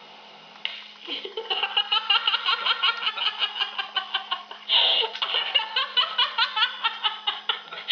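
A man and a woman laughing hard together, in quick repeated bursts of several a second that start about a second in.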